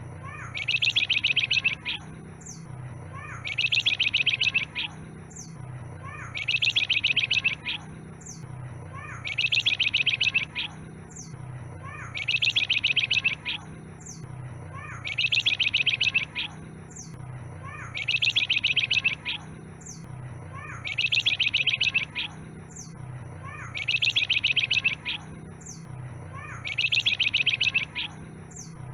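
A flamboyan songbird singing: a fast, rattling trill phrase about a second long, repeated about every three seconds, with short falling whistled notes between the phrases.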